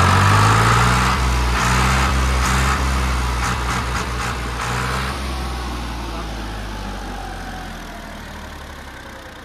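Farmtrac tractor's diesel engine running hard while it blows gulal powder out of its upright exhaust stack, then getting steadily quieter. A faint whine falls in pitch over the second half.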